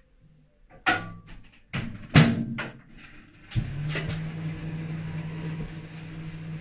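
A red countertop microwave oven being loaded with butter: several clicks and knocks at its door, the loudest about two seconds in. Then about three and a half seconds in the oven starts with a steady low hum and fan hiss as it begins melting the butter.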